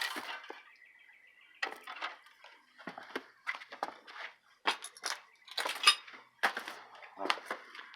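Irregular crunches, clinks and knocks of fire-damaged debris being stepped on and pushed aside, about a dozen sharp sounds spread across a few seconds.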